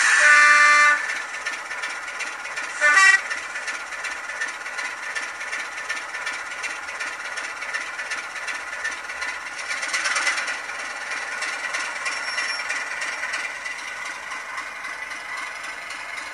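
Sound from an N gauge Graham Farish Class 25 diesel model's DCC sound decoder through its tiny speaker, playing a South West Digital Class 25 sound file. It opens with a horn blast of about a second, gives a second short horn note about three seconds in, then the diesel engine sound runs steadily, swelling briefly about ten seconds in.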